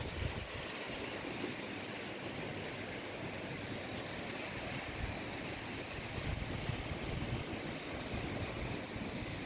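Steady rush of wind and sea waves, with irregular low rumbles of wind buffeting the microphone.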